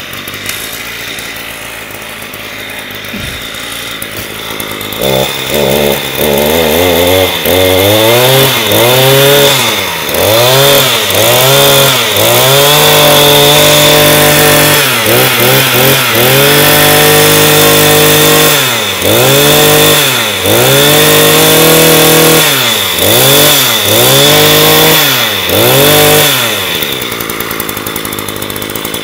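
Echo EGT 220 brush cutter's small two-stroke engine idling, then revved up and down again and again in quick throttle blips, some held briefly at high revs, before dropping back to idle near the end.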